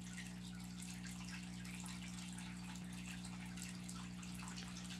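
Steady low hum with a faint hiss: room tone.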